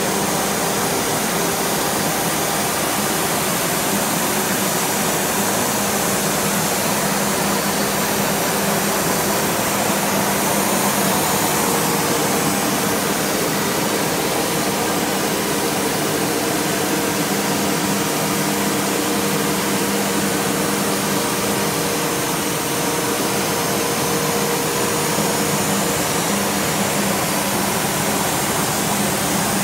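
MultiCam 3000 Series CNC router running steadily, its spindle cutting a circle in a sheet while the dust-collection hose draws air at the cutter. It is a loud, even rush of noise with a few steady hums under it.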